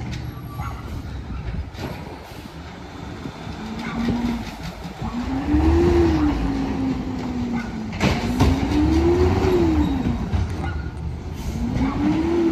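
CNG engine of a 2011 Peterbilt 320 automated side-loader garbage truck revving hard three times, each rev rising and then falling in pitch, while it works the hydraulic arm to lift and dump a trash cart. A single sharp bang comes partway through.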